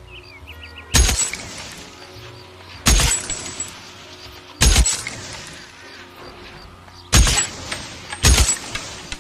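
Browning Automatic Rifle sound effect: five single shots spaced one to two and a half seconds apart, each with a long echoing tail.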